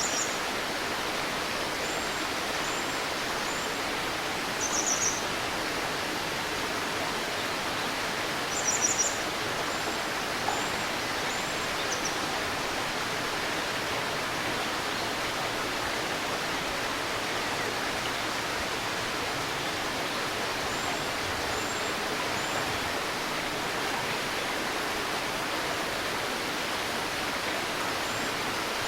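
Steady rushing of a babbling river, with small birds calling over it: short bursts of rapid high chirps, the loudest about nine seconds in, and faint thin high calls in runs of three now and then.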